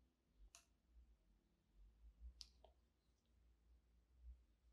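Near silence, broken by a few faint clicks of the rusty hand saw blade being handled on a tabletop: one about half a second in, then two close together about two and a half seconds in.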